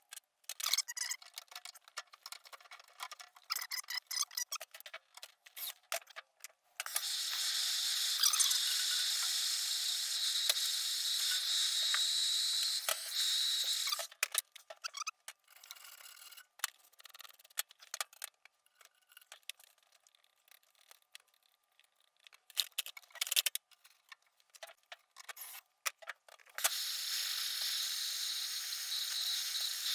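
Hand-held plumbing torch burning with a steady hiss, lit twice for a few seconds each time, with small clicks and knocks of tools and fittings being handled in between.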